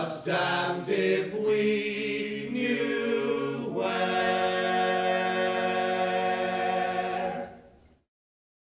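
A small group of male voices singing unaccompanied in harmony: a few shifting notes, then one long held closing chord that dies away near the end.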